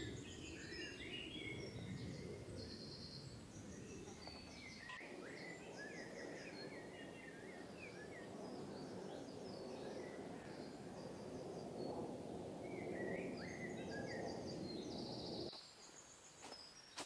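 Wild birds singing in the forest, with many short chirps and several repeated trills, over a steady low rush of wind noise that drops away suddenly near the end.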